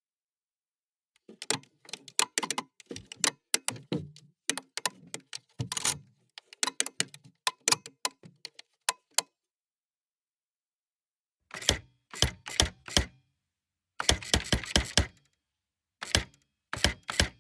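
Electric typewriter being typed on: key strikes start about a second in and run in irregular bursts for about eight seconds, then after a pause come three short runs of rapid strikes.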